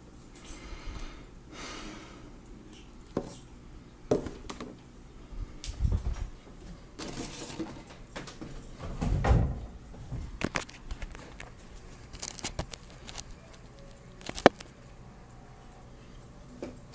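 Scattered clicks, knocks and brief rustling and scraping noises of objects being handled, with a heavier thump about halfway through and one sharp click near the end.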